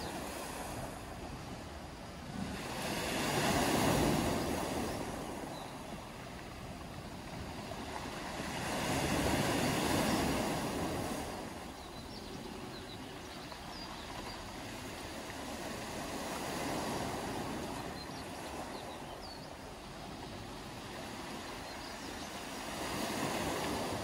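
Sea waves breaking and washing up a beach of round pebbles, swelling and falling back four times, about every six or seven seconds. Faint short bird chirps can be heard now and then.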